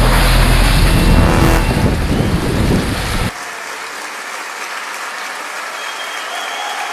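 Jeep Wrangler running hard through a mud-pit puddle, its engine and the water splashing off the tyres, cutting off suddenly about three seconds in. A quieter, steady hiss like applause follows.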